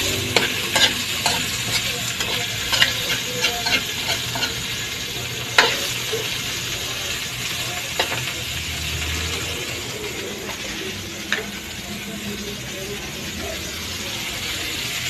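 Chicken pieces sizzling in hot oil in a wok, stirred with a spoon that clicks and scrapes against the pan. The clicks come thick in the first few seconds, then only now and then over the steady sizzle.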